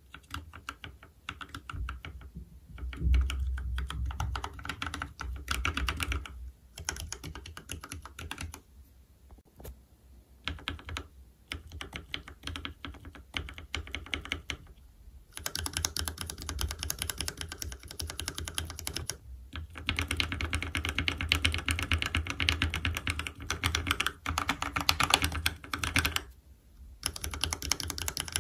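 Mechanical keyboard typing on C3 Equalz Tangerine v2 linear switches (67 g) in a Keychron K6. Some keys are lubed with Krytox 105 and filmed, the rest stock. Dense runs of key strokes come in spells, with a few short pauses.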